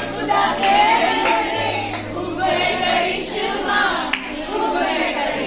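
A group of women singing a song together in chorus, several voices at once.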